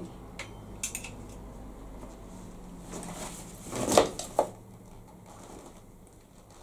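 Clothes hanger clicking a few times in the first second, then a plastic shopping bag and clothing rustling, loudest about four seconds in as a garment is pulled out of the bag.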